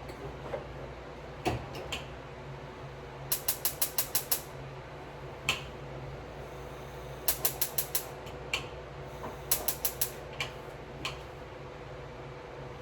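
Gas stove burner igniter clicking in several quick runs of about six clicks a second, with pauses between, as the burner under the pot is slow to light.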